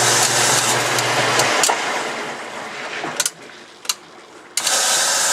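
A loud, steady rushing hiss like a blower motor, with a low hum that stops about a second and a half in. The noise then fades away, with a few sharp clicks, and cuts back in abruptly near the end.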